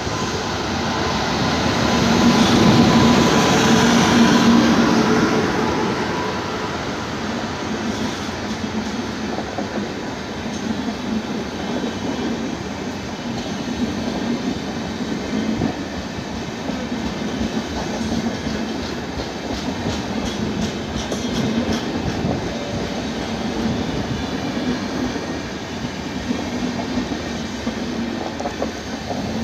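Passenger train passing close by at speed: the electric locomotive's pass is loudest in the first few seconds, then the LHB coaches roll past with a steady rumble and clickety-clack of wheels over the rail joints.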